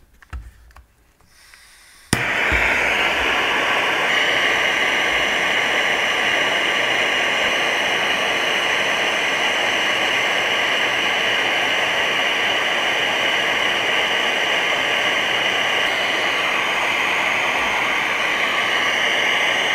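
HellermannTyton CHG900 cordless gas-powered hot air gun starting with a click about two seconds in, then running with a steady, even hiss.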